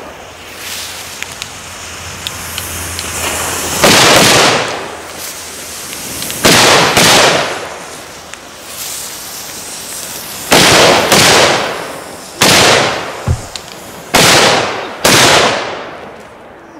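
Jorge FP3 firecrackers, about 1.8 g of flash powder each, exploding one after another: about eight sharp bangs over some eleven seconds, several in quick pairs half a second apart, each followed by a short echoing tail.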